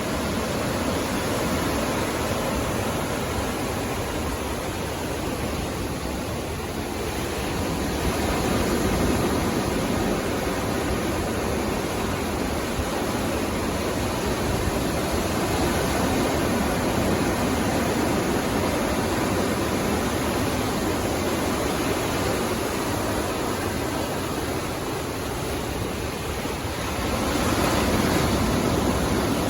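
Sea waves breaking and washing up a beach: a continuous rush of surf that swells louder several times, each swell lasting a few seconds.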